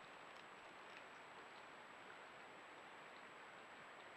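Near silence: a faint steady hiss with a thin high tone running through it and a few faint ticks.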